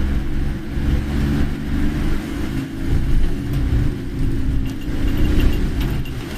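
Car interior noise while driving: a steady low rumble of engine and tyres on a wet road, with heavy typhoon rain hitting the car.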